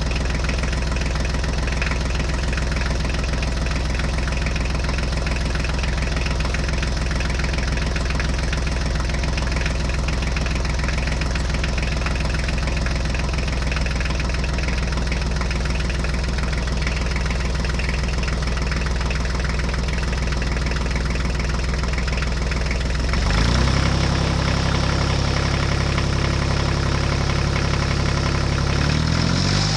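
Diesel tractor engine idling at a steady low speed. About three-quarters of the way through it revs up quickly and holds at a higher speed, and it changes speed again near the end.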